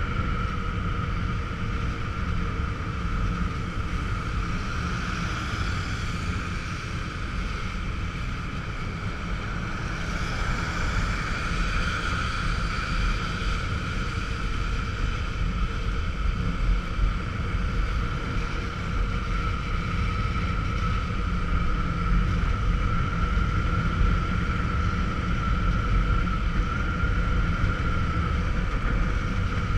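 Motorcycle in motion on a wet road: a steady engine and wind rumble on the rider's camera microphone, with tyre hiss from the wet surface and a steady high whine over it.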